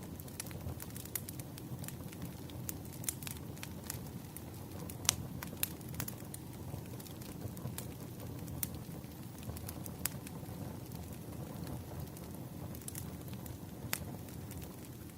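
Wood fire burning with a low steady rumble and irregular crackles and pops of the burning firewood, the sharpest pop about five seconds in.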